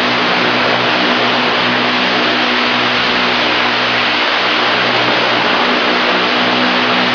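Large industrial floor fan running at its highest speed setting: a loud, steady rush of air over a low motor hum.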